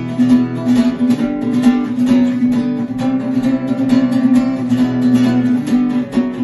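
Acoustic guitar played with rhythmic strums and percussive knocks on the strings and body, over sustained ringing chords.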